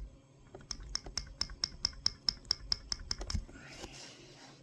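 Valve poppet in the reassembled AP900B air rifle valve assembly being pushed and snapping back on its spring again and again, a quick run of small metallic clicks at about six a second, checking that it moves freely without jamming. A short rubbing noise follows near the end.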